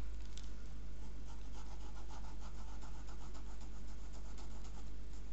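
Pencil scratching on sketchbook paper in a quick run of short strokes, over a steady low hum.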